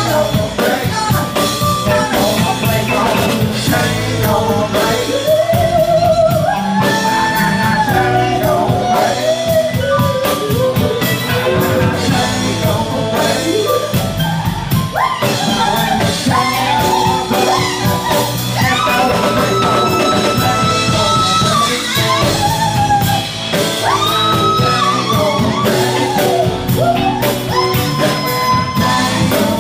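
Live rock band: a woman singing lead, holding long notes, over electric guitar, bass guitar and drum kit.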